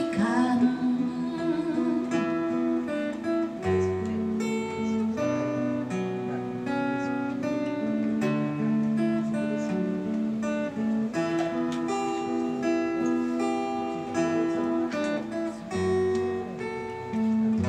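Steel-string acoustic guitar strummed in an instrumental passage, the chords changing every second or two. A sung note fades out right at the start.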